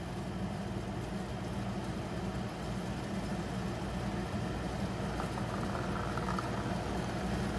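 Portable power station's cooling fans running steadily under a heavy load of well over 1,200 watts from a coffee maker, a constant hum that grows slightly brighter about five seconds in.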